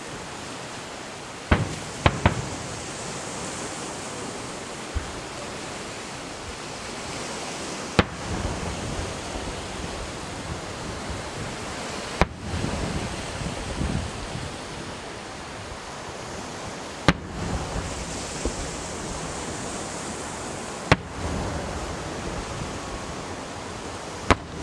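Aerial firework shells bursting with sharp bangs every few seconds, about eight in all, some followed by a few seconds of crackle and rumble. Under them runs a steady hiss like wind and sea.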